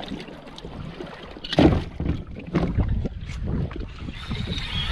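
Water slapping and sloshing against a plastic fishing kayak's hull, with wind on the microphone and irregular knocks of gear being handled on the deck; the loudest knock comes about one and a half seconds in.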